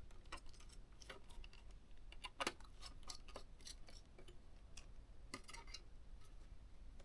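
Faint, scattered small clicks and taps of metal and plastic as a ThinkPad T430's heatsink and fan assembly is worked loose and lifted out of a tight fit. One sharper click comes about two and a half seconds in.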